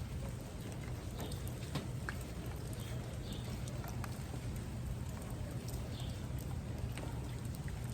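Steady rain falling, with scattered individual drips and taps.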